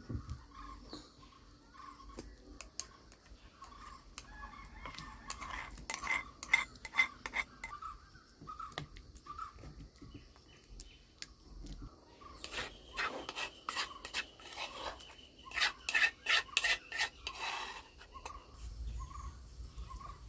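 Grated papaya pulp being mixed and squeezed by hand in an iron wok, giving rubbing and scraping with bursts of sharp clicks and clatter about six seconds in and again from about twelve to eighteen seconds. A bird calls repeatedly in the background.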